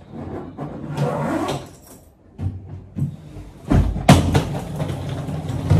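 Hard-shell suitcase being handled and lifted off a bed: a stretch of scraping and rustling, then two loud thumps about four seconds in as it is set down, and another knock near the end.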